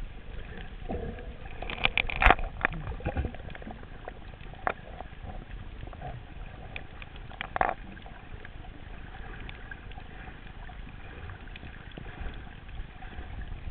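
Underwater ambience: a steady muffled rush of water with scattered sharp clicks and knocks, loudest in a cluster about two seconds in and again about seven and a half seconds in.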